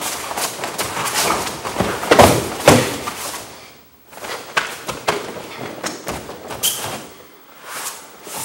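Thuds and slaps of a kenpo self-defence technique on padded mats: bodies, feet and hands hitting the mat and each other, with the rustle of heavy uniforms. The two loudest thuds come close together about two and a half seconds in, as the attacker is taken down, followed by a brief lull and lighter knocks.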